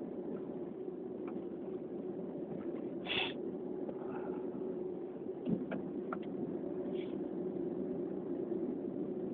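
Steady low background rumble, with a few faint clicks and two short hissing sounds, about three seconds in and about seven seconds in.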